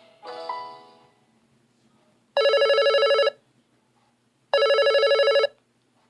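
Smartphone ringtone previews: a short melodic tone dies away in the first second. Then a telephone-style electronic ring, a rapid warbling trill about a second long, sounds twice about two seconds apart.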